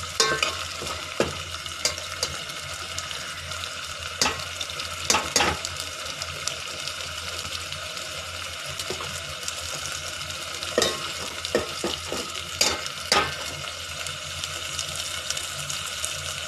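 Wet ground coconut, coriander, garlic and ginger masala paste frying in oil in a metal pot, a steady sizzle, with the ladle scraping and knocking against the pot now and then as it is stirred. The paste is being cooked down in the oil before the oil separates at the edges.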